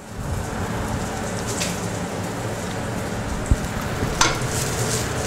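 Cauliflower sautéing in olive oil in a frying pan, a steady sizzle, with a couple of sharp knocks of utensils or pan in the second half.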